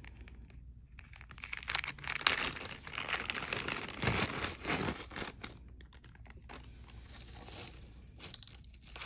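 A bag crinkling and rustling as it is opened and handled. It is loudest for a few seconds after about a second in, then goes on more faintly.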